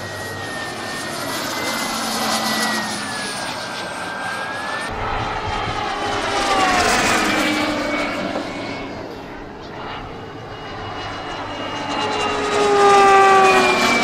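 Model turboprop turbine engines of RC scale Embraer T-27 Tucano planes whining in flight, with the pitch falling as they pass by, once about six seconds in and again near the end.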